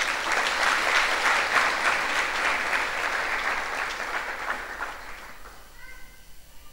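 Audience applauding: a burst of clapping that thins out and dies away about five seconds in.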